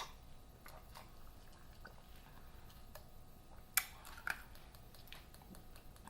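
A person quietly sipping and swallowing cran-mango juice, with faint wet mouth sounds and small clicks, and a sharper click about four seconds in.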